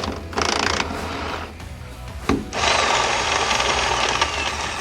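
Power tool run in two bursts on a rusty truck-bed mounting bolt: a short burst about half a second in, then a longer run of about three seconds.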